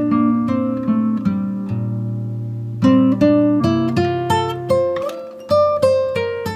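Background music: acoustic guitar picking a melody, the notes plucked one after another and left to ring.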